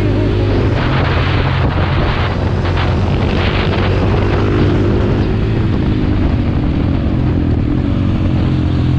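Supermoto motorcycle engine running steadily under way, its pitch wavering slightly, with wind rushing on the microphone for a few seconds about a second in.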